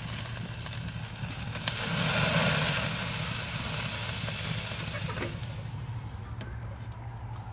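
Bone-in ribeye searing on the grate of a very hot kamado charcoal grill: a sizzle and hiss that swells about two seconds in and dies down again after about five seconds.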